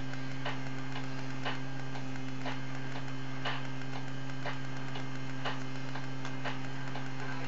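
Strobe light ticking with each flash, a sharp regular tick about once a second, over a steady electrical hum.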